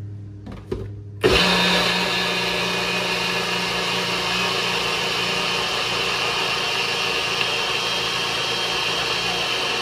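NutriBullet personal blender blending a thick batch of hummus. A couple of clicks as the cup is pressed onto the base, then the motor starts abruptly about a second in and runs steadily.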